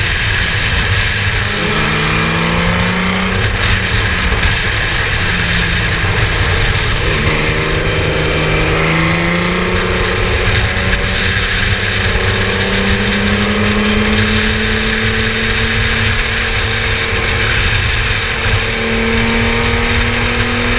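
Formula Yas 3000 single-seater race car engine running under load over a constant loud rush of noise. Its pitch drops and climbs again a few times in the first seven seconds, then rises slowly and steadily.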